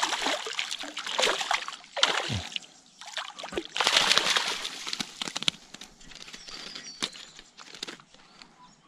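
A hooked dusky flathead thrashing and splashing at the water's surface as it is scooped into a landing net, in three loud bursts of splashing over the first five seconds. After that, fainter drips and knocks as the netted fish is lifted from the water.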